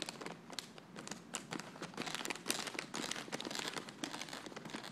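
A cat pawing and pushing at a plastic pretzel bag, the bag crinkling and crackling in irregular bursts.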